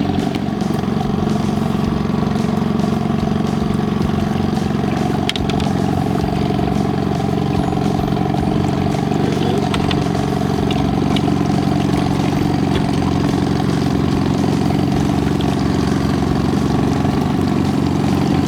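A boat engine running steadily at trolling speed, a constant even hum.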